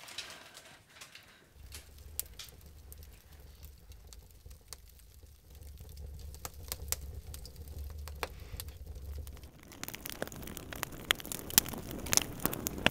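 Burning paper crackling with scattered small pops, faint at first over a low hum. It thickens into a steadier, busier crackle about ten seconds in as the flames spread.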